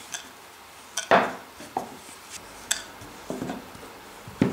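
Wooden rolling pin knocking and rolling against a wooden board as pastry dough is rolled out thin: a handful of sharp wooden knocks, the loudest about a second in.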